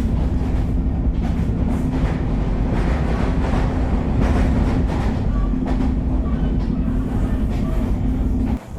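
Indian Railways train running along the track: a steady low rumble with a constant hum and irregular clacks of the wheels over the rails. The sound drops out for a moment near the end.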